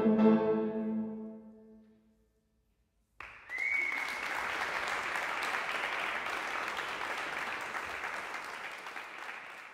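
Tuba and piano hold a final chord that dies away over about two seconds. After a second's gap an audience breaks into steady applause, which fades toward the end.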